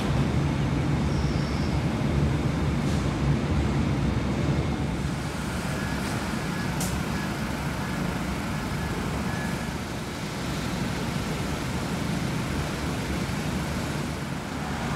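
Steady low rumble of idling railway machinery at a station platform, with faint brief clicks about three and seven seconds in.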